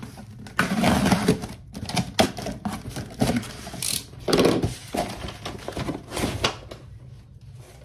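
Cardboard shipping carton being handled: its flaps opened and rustled, and the carton scraped and knocked on the table, in a string of sharp rustles and thumps that ease off near the end.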